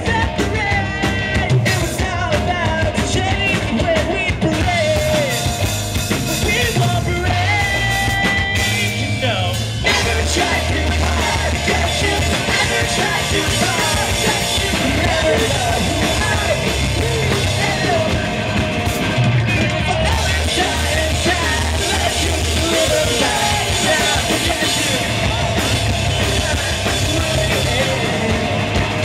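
Live rock band playing loud: drum kit, guitar and bass, with a singer's voice over them, partly yelled. The low end gets heavier about ten seconds in.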